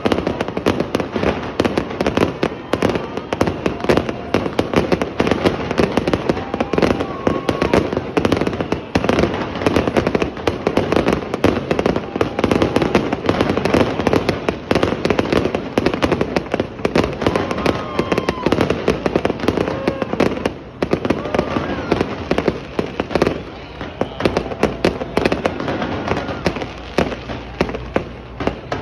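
Professional aerial fireworks display heard from close below: many shells and comets fire and burst at once in a rapid, unbroken crackling and banging, with a few short dips in intensity near the middle.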